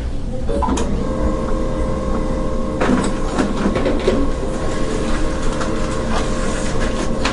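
Small-office ambience: a steady machine whine, likely from an office machine such as a printer or fax, starts about a second in over a low hum, with a cluster of clicks and knocks near the middle.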